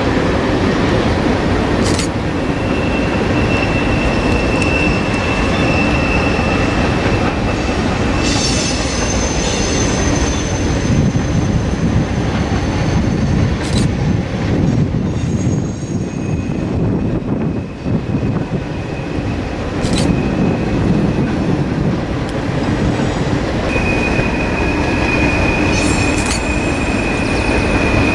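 Norfolk Southern freight train passing, with several diesel locomotives followed by freight cars: a steady rumble of engines and wheels on rail. A thin high wheel squeal comes and goes, and a few sharp clicks stand out.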